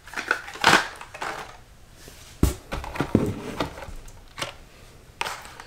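Blister-carded Hot Wheels die-cast cars being handled: cardboard and plastic packaging rustling, with several knocks and a heavier thump about two and a half seconds in.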